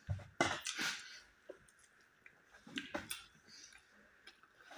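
Close-up chewing and wet mouth sounds of people eating a cooked moringa dish with flatbread, in scattered smacks and clicks with short pauses between.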